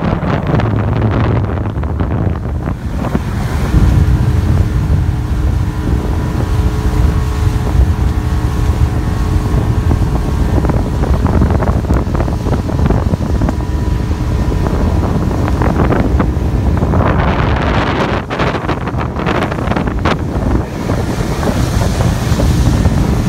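Loud wind buffeting the microphone aboard a moving motorboat, over the wash of water along the hull. A steady engine hum shows through from about 4 to 15 seconds in, and the water wash surges louder for a few seconds near the end.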